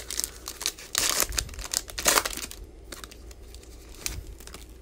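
Wrapper of a 2019 Panini Playoff football card pack being torn open and crinkled, in a run of crackly rustles over the first two seconds or so, then quieter rustling as the cards are slid out.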